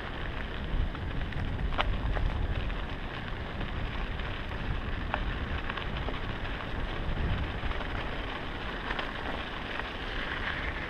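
Mountain bike tyres rolling over a snow-covered road: a steady rushing noise with a low rumble and a couple of sharp clicks from the bike.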